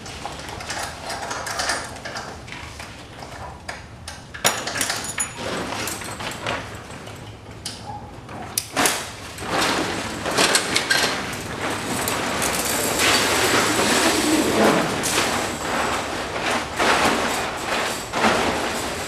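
A large tarp curtain being pulled and shifted by hand: crinkling and rustling with scattered knocks and scrapes, growing louder and denser about halfway through.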